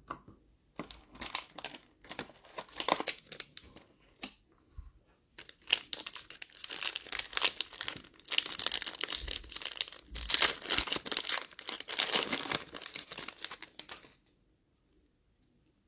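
A Fleer Ultra Midnight Sons trading-card pack wrapper being torn open and crinkled by hand: irregular rustling and tearing, sparse at first and densest in the middle, stopping about two seconds before the end.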